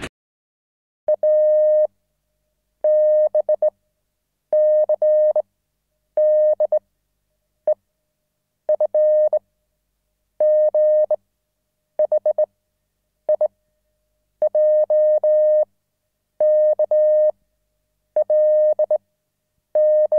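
An electronic beep tone at one steady pitch, sounding in about a dozen groups of long and short beeps with short silences between them, like a Morse-style signal.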